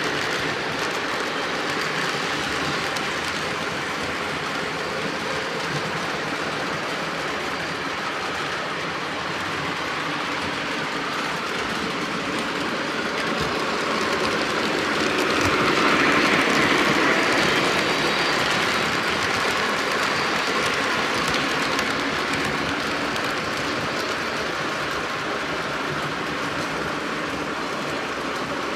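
Lionel O gauge model trains running on the track: a steady rumble and clatter of wheels and motors, swelling louder about halfway through and then easing back.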